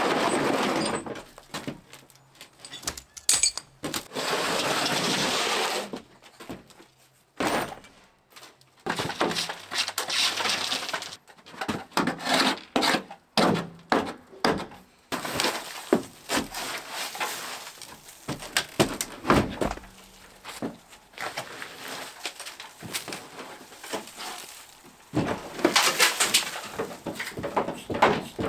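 Hands-on installation work with tools and fittings: irregular knocks, clicks and clatter, broken by a few noisy passes lasting a second or two.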